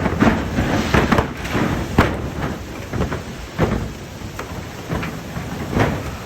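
Gale-force wind gusting hard against the microphone, a constant low rumble broken by several sharp thumps and knocks.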